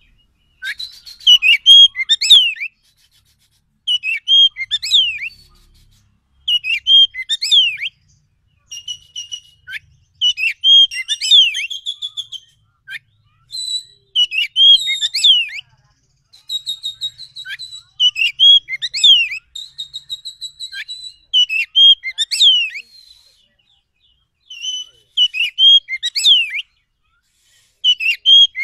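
Oriental magpie-robin (kacer) singing: loud, varied whistled song phrases of rising and falling notes and quick trills, about ten phrases each a second or two long with short pauses between them.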